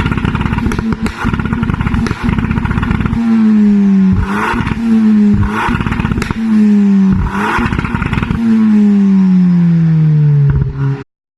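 Ford Fiesta ST180's turbocharged four-cylinder revved through a Milltek non-resonated race cat-back exhaust, held on a hard-cut rev limiter that makes it stutter rapidly for about three seconds. It then gives several quick revs, each letting the revs fall away, the last one sliding down slowly before the sound cuts off abruptly.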